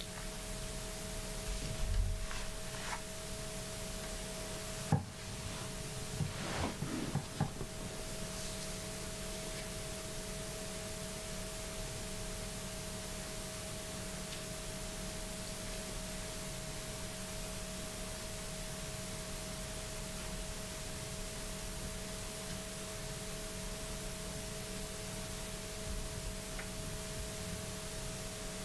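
Quiet room tone: a steady hiss with a faint, even hum. A few soft knocks and rubs come in the first eight seconds, the sharpest about five seconds in.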